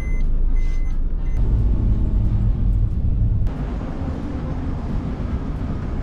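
Car driving: a steady low engine and road rumble. The sound changes abruptly about three and a half seconds in, taking on more hiss.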